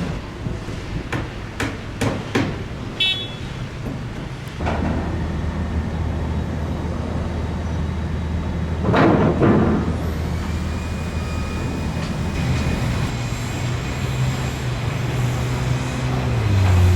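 Construction-site and street noise: a few sharp knocks like hammering in the first seconds, then a vehicle engine running steadily. A vehicle passes about nine seconds in.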